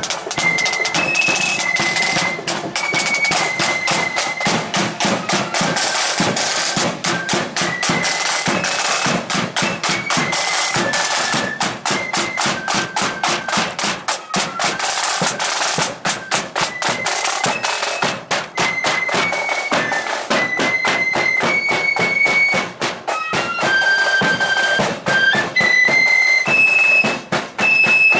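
A marching flute band playing a tune: flutes carry a high melody in held notes over rapid, continuous side-drum beating and a bass drum.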